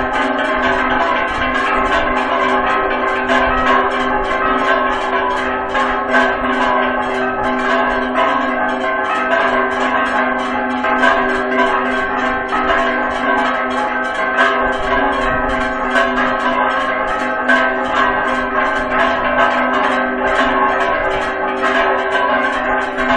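Mexican church bells ringing a fast repique, the call to mass: rapid strikes several a second, with the bells' tones ringing on underneath.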